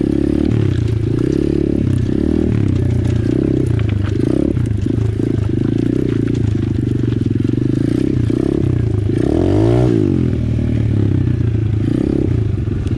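Apollo RFZ 125cc pit bike's single-cylinder four-stroke engine running as the bike is ridden, the revs rising and falling, with a marked drop and climb in revs about ten seconds in.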